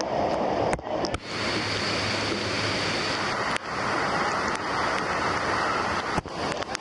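Rushing water of a waterfall, a steady even rush, with a few sharp knocks in the first second or so and again near the end.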